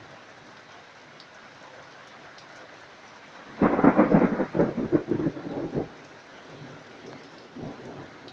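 Heavy downpour of rain hissing steadily. About three and a half seconds in, a sudden loud clap of thunder breaks out and lasts about two seconds, followed by a fainter rumble near the end.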